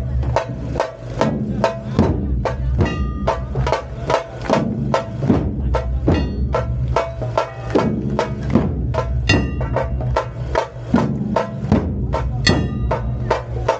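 A troupe of large Maharashtrian dhol barrel drums beaten with sticks in a fast, driving rhythm, about three strokes a second, with sharp, ringing high strokes over the deep beat.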